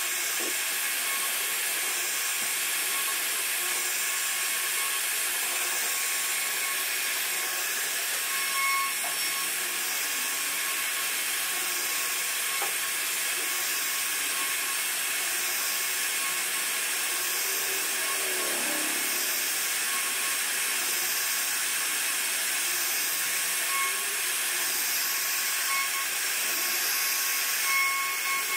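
CNC router spindle running as its cutter carves a relief pattern into a wooden panel: a steady hiss with a faint constant whine, and a few brief swells as the bit cuts.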